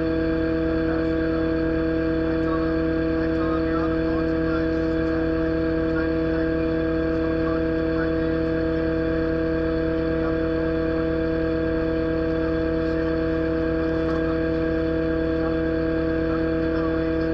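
Excavator engine and hydraulic pump running steadily with the boom and bucket held still: a constant drone with a steady, unwavering whine.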